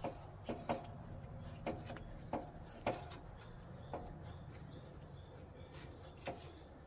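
Light, irregular clicks and knocks as wing nuts are hand-tightened on a lawn tractor bagger's hitch bracket, most of them in the first three seconds.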